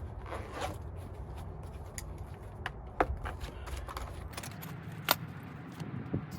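Hand work on a motorcycle's rear fender: small parts and tools handled, giving scattered scrapes and knocks, with two sharp clicks about three and five seconds in, over a low steady rumble.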